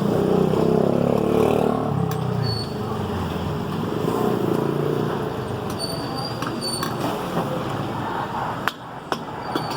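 Street traffic din, with a motor vehicle's engine droning for the first two seconds and then fading. Several sharp clinks, some with a short high ring, come in the second half.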